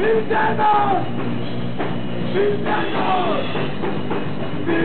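A rock band playing live and loud, with drums and electric guitar under a sung lead vocal whose notes slide up and down.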